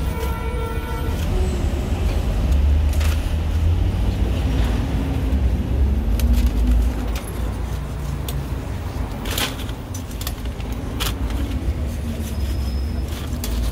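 Low steady rumble of street traffic, with a few sharp clicks of metal tongs against the wire rack of a bungeoppang stall.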